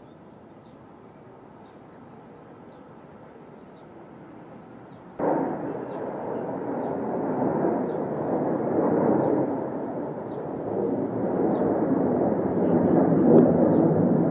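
Jet aircraft noise that starts abruptly about five seconds in and stays loud, a deep rumbling roar that swells and rises toward the end. Before it there is only a faint low hush with light, regular high chirps.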